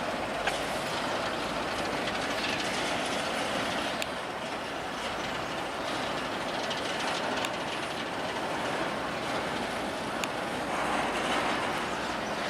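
Freight train cars rolling past, a steady rush of wheel and rail noise with a few sharp clicks.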